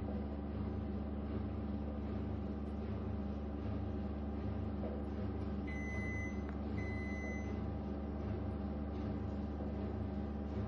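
A steady low electrical appliance hum, with two short electronic beeps about a second apart midway through.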